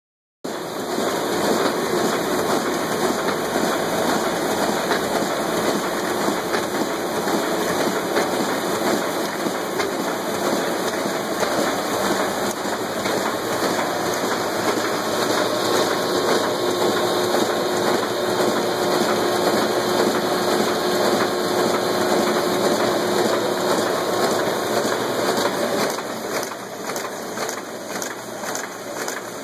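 Web-fed printing press running, a steady mechanical whir and rattle as the paper web feeds off the roll through the press; a little quieter near the end.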